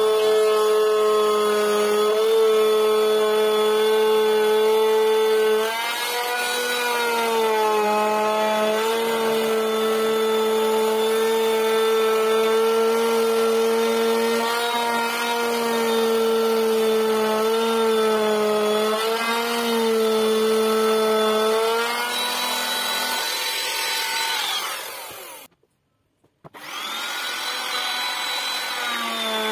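Handheld electric power tool cutting wood: a steady motor whine with many overtones, its pitch sagging now and then as the cutter bites. About 23 seconds in it winds down with a falling pitch. After a second of silence it starts up again and runs on.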